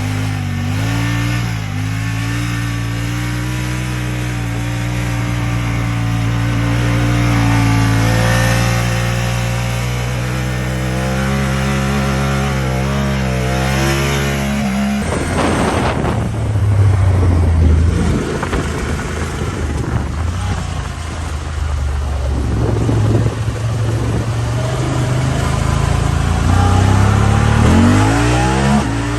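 Honda Talon 1000R side-by-side's parallel-twin engine running under load, holding a steady pitch and then revving up and down. About halfway through, the sound changes abruptly to rougher driving, with the revs rising and falling.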